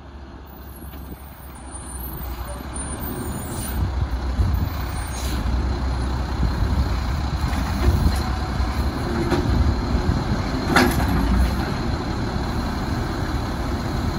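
Heil 7000 automated side-loader garbage truck's diesel engine running, growing louder over the first few seconds as the truck pulls up. Several short air-brake hisses follow, the strongest a little before the end, and the engine keeps working as the side arm lifts a cart.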